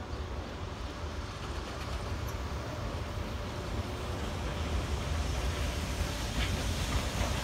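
Steam locomotive approaching slowly over station tracks: a steady low rumble that grows gradually louder.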